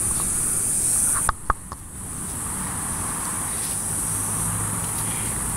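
Steady high-pitched chirring of insects, cicadas or crickets, outdoors. About a second in it drops away abruptly at a cut, with a few sharp clicks, then carries on more faintly.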